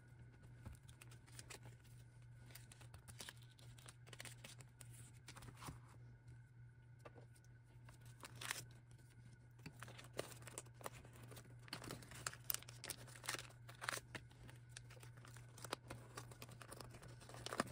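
Faint crinkling and rustling of clear plastic binder pocket pages and card sleeves as photocards are handled, pages are turned and cards are slid into the pockets, in short scattered crackles over a steady low hum.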